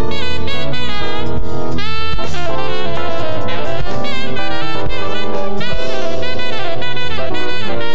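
Saxophone playing a fast jazz-fusion solo line of quick runs and bending notes, over the band's drum kit and bass.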